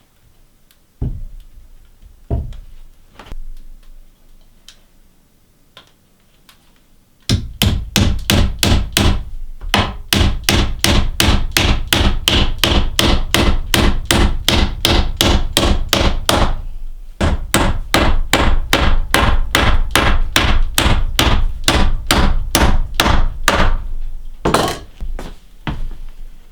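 A hammer driving nails into wood: a few separate knocks, then about seven seconds in a long run of quick, even blows at about four a second, a brief pause, another run, and one heavier blow near the end.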